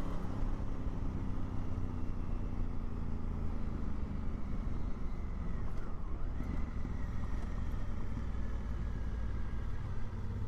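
Honda Africa Twin's parallel-twin engine running at a steady cruise under a constant low rumble of wind and road noise, with a brief dip and rise in engine pitch about six seconds in.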